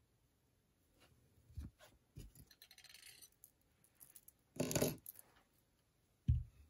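Quiet tabletop handling noises: a few light taps and a short rustle as a shell bead necklace is laid down on the table. About two-thirds in comes a louder half-second clatter, the loudest sound, and a dull thump near the end.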